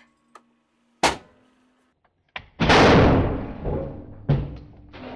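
Sharp explosive bang of a high-current capacitor-bank pulse discharge blowing apart an electronic unit, about a second in. About a second and a half later comes a much bigger, deeper boom with a long rumbling decay and another hit, and music starts near the end.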